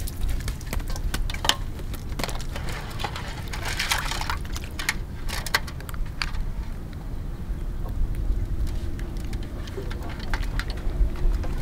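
Water splashing and dripping in an aluminium basin of live mantis shrimp, with scattered sharp clicks and taps as the water is disturbed and hands lift a shrimp out.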